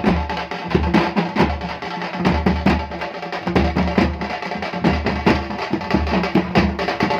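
Tamil kuthu drum ensemble playing loudly: rapid, dense stick strokes over a deep beat about twice a second.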